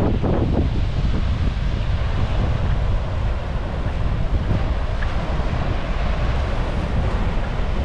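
Wind buffeting the microphone as a steady low rumble over the continuous wash of ocean surf breaking on a sandy beach.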